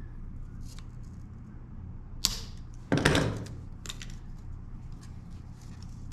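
Coiled sail battens being cut loose and handled: a sharp snap about two seconds in, then a louder clatter about a second later, with a few faint clicks.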